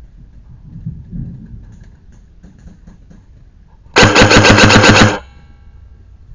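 Airsoft electric gun firing one full-auto burst lasting a little over a second: a loud, rapid mechanical rattle over a motor whine, which cuts off with a brief ringing tail.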